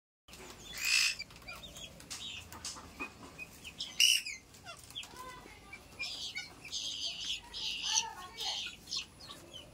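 Young guinea fowl keets calling: short high chirps with harsh, noisy calls. There are two loud bursts, about a second in and about four seconds in, then a run of about six rasping calls about half a second apart near the end.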